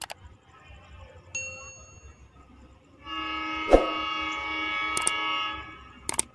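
Subscribe-button animation sound effect: a short chime about a second in, then a held multi-note tone from about three seconds. Several mouse-click sounds come through it, with a quick double click near the end.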